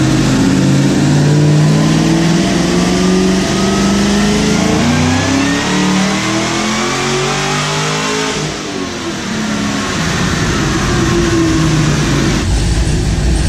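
Supercharged engine of a Chevrolet Caprice police car at wide-open throttle on a chassis dyno, the revs climbing steadily for about eight seconds. The throttle is then lifted and the revs fall away quickly, settling to a lower steady run near the end.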